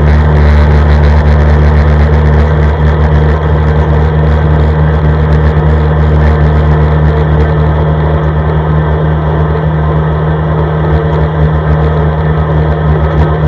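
CFMoto ATV engine running steadily under way at a constant pace on a snowy track, a loud, even engine drone with no change of revs.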